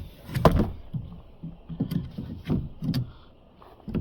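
Knocks and scraping of a hand-shaped part being pushed and worked into a groove to test its fit, with a sharp knock about half a second in and several smaller clunks after.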